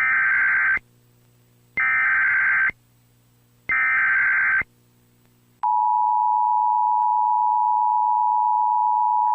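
Emergency Alert System signal: three short bursts of SAME header data warble about two seconds apart, then, about five and a half seconds in, the steady two-tone EAS attention signal (853 and 960 Hz together) begins.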